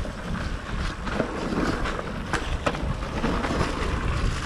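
Propain Ekano e-mountain bike rolling along a dirt trail: wind rumbling on the camera microphone over the tyre noise, with a few sharp knocks and rattles from the bike over bumps.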